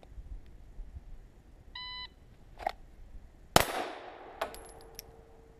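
An electronic shot timer beeps once. Just under two seconds later a single shot from a Glock 17 9mm pistol rings out, drawn from the holster and fired on the beep, followed by a few light clicks.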